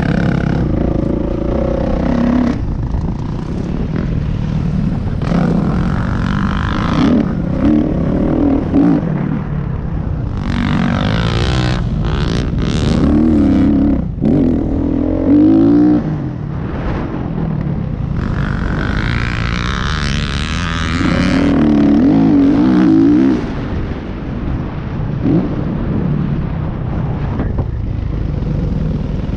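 Dirt bike engine on a motocross ride, revving up hard in repeated surges and dropping back between them, over steady wind rumble on the bike-mounted or helmet-mounted microphone.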